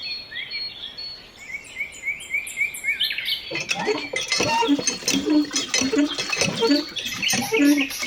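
Small birds chirping over and over. About halfway through, a busy run of quick light taps and clicks joins in and keeps on under the chirping.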